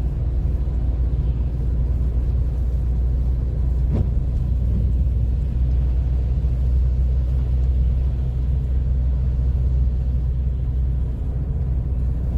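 Steady low rumble of a car driving on a snowy road, heard from inside the cabin. A faint click about four seconds in.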